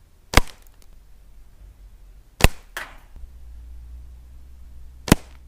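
Three sharp cracks of a .25 Hatsan Striker break-barrel spring air rifle firing, about two and a half seconds apart. A fainter crack follows the second shot.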